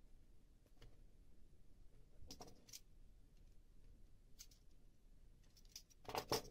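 Faint clicks and light knocks of a cable and hand tools being handled on a tabletop, in an otherwise near-silent room. A short cluster of sharper clicks, the loudest sound, comes near the end as a yellow snap-off utility knife is picked up.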